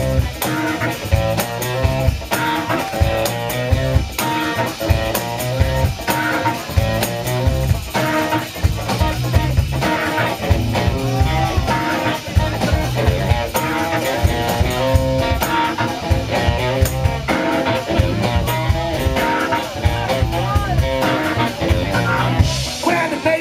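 Live blues-soul band playing electric guitar, keyboard and drum kit to a steady beat.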